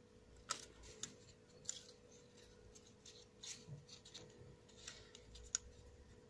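Quiet handling noise: scattered small clicks and rubs as a palm-sized plastic quadcopter and a digital caliper are turned and shifted in the hands. The sharpest clicks come about half a second in and again near the end.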